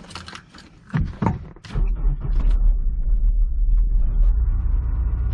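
A few clicks and knocks inside the car, then about two seconds in the Honda S2000's engine starts and settles into a steady idle, heard from the cabin.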